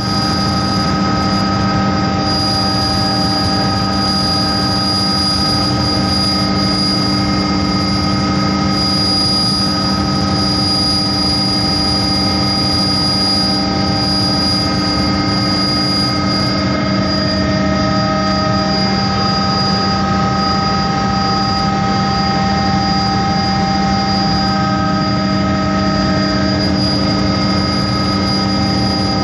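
Helicopter in steady cruise flight heard from inside the cabin: a loud, constant rush of engine and rotor noise with several steady whining tones, one of them high.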